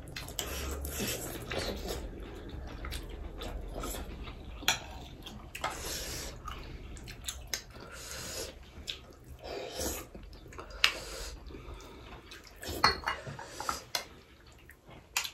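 Two people eating momos with spoons: wet mouth sounds of chewing and slurping, with spoons clicking and scraping on glass dishes at irregular moments.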